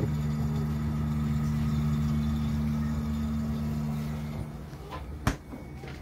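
Condura inverter upright freezer running with a steady low hum, which fades about four and a half seconds in, followed by a single sharp knock a little later.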